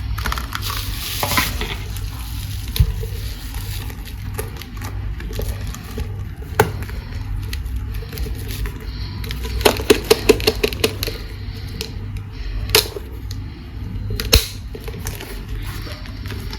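Hard plastic toys and packaging being handled: rustling at first, then sharp single clicks and taps, with a quick run of clicks about ten seconds in. A low hum sits underneath.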